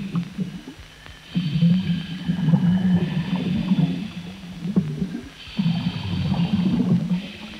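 Scuba divers breathing through their regulators underwater: several breaths with short pauses between, each a hissing draw and a low bubbling rumble of exhaled air.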